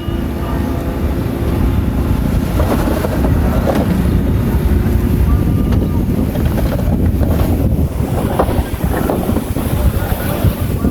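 Bulldozer's diesel engine running steadily as a low rumble, with irregular clatter midway through.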